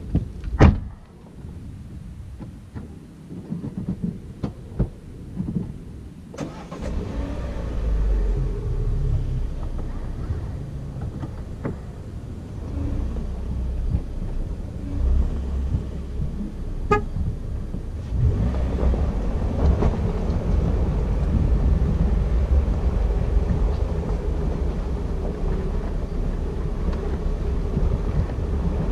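Renault Oroch 2.0 pickup on the move: a low rumble of engine and road that sets in after about six seconds and grows louder over the last third. Before it come a handful of sharp clicks and knocks, the loudest right at the start.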